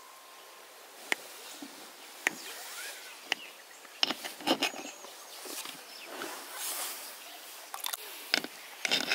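Kitchen knife slicing down through a stacked crepe cake, with soft rustling and crackling of the crepe layers and a few sharp clicks.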